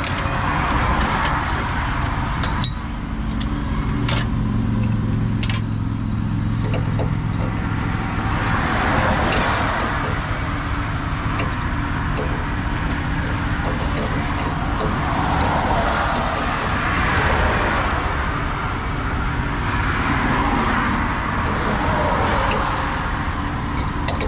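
Interstate traffic rushing past in repeated waves, with light metallic clinks of tools and fittings being handled a few seconds in.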